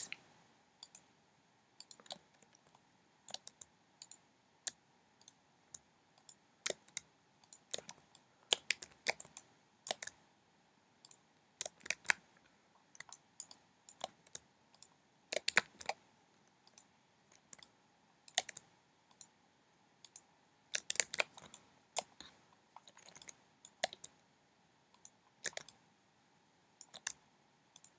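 Faint, irregular clicks of a computer mouse and keyboard, some single and some in quick little clusters, as mesh vertices are selected and moved in a 3D editor.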